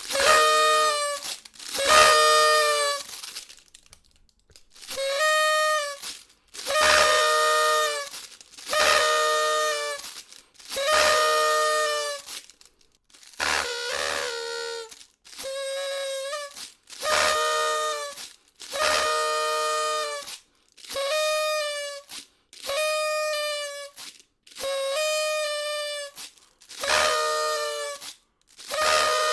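Party whistle (party horn) blown over and over: about fifteen short toots, each about a second long at a steady pitch, roughly one every two seconds with brief silences between.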